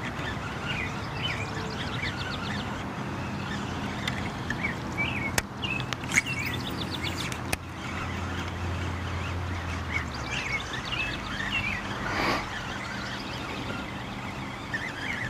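Small birds chirping and trilling on and off, over a steady low hum, with a few sharp clicks in the middle.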